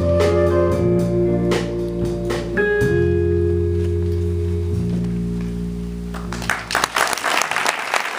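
Jazz band with electric guitar, electric bass and flute playing the closing chords of a tune, the last chord held and fading out, followed by audience applause starting about six and a half seconds in.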